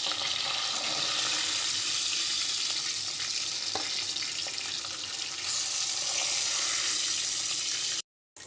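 Hilsa fish steaks sizzling steadily as they fry in hot oil in a metal pan. The sizzle cuts off suddenly near the end.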